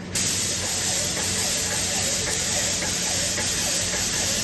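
Airless spray gun fitted with a larger tip spraying wall putty onto a wall: a steady, loud hiss from the tip that starts abruptly as the trigger is pulled.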